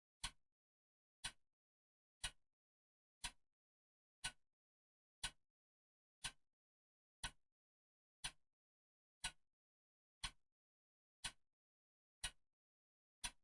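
Ticking clock, one sharp tick a second with nothing between the ticks, each tick trailed by a faint softer click.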